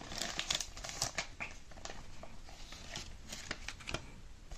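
Crinkling and crackling of a thin clear plastic wrapper as a stack of trading cards is worked out of it by hand, with small irregular rustles and clicks throughout.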